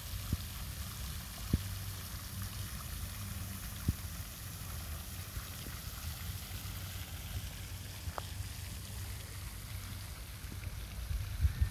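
Pond fountain spraying and splashing steadily, with a low rumble under it and a few short sharp clicks.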